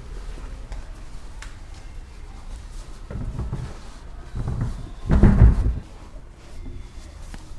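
Deep bass from JBL PRX900 powered PA speakers and subwoofers playing back, a steady low rumble with three heavier bass swells between about three and six seconds in, the loudest just after five seconds.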